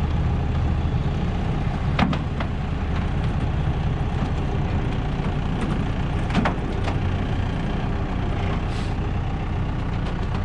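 A machine's engine running steadily while the grain drill is moved onto the trailer deck, with a few knocks, the sharpest about two seconds in and another at about six and a half seconds.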